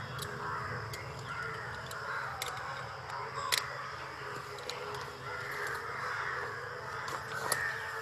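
Crows cawing repeatedly on the soundtrack of an outdoor field recording, over a steady low hum, with a few sharp clicks, the loudest about three and a half seconds in.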